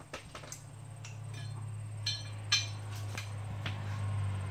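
Light metallic clicks and clinks as a mower blade, washer and bolt are fitted under a zero-turn mower deck by hand. A low steady hum grows louder underneath them.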